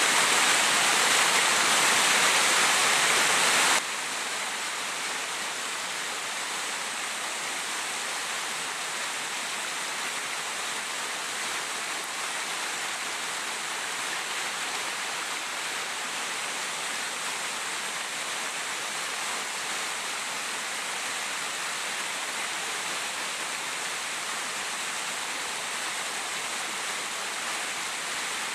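Rushing water, a steady even roar: louder at first, then cutting abruptly about four seconds in to a softer, steady rush of water.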